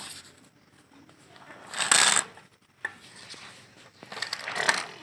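A toy tractor's wheels rolling and scraping on a concrete floor as a child pushes it, a low uneven rattle with small clicks that grows near the end. A brief hiss comes about two seconds in.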